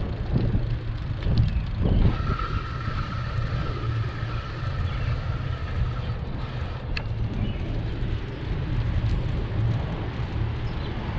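Steady low rumble of wind and road noise on the microphone of a camera riding on a moving bicycle, with a faint high whine for a few seconds in the middle and one sharp tick about seven seconds in.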